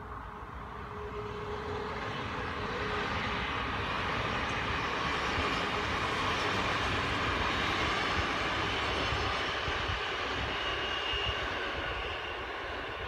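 NS VIRM double-deck electric train passing by, the rumble of its wheels on the rails swelling to a peak mid-way and fading away as it goes.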